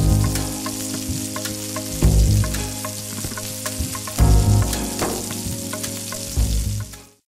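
Outro jingle of sustained chords with a deep bass note about every two seconds, over a steady crackle like oil sizzling in a pan; it fades out near the end.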